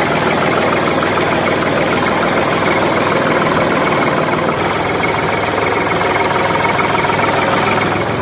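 Small electric motor and gears of a home-made toy tractor running steadily, with a dense whirr, as its rear wheel spins in loose sand without moving forward.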